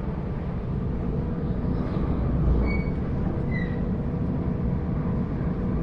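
Sydney Trains Waratah passenger train heard from inside a carriage while under way: a steady rumble of wheels on the track with a faint steady hum. Two brief high squeaks come near the middle.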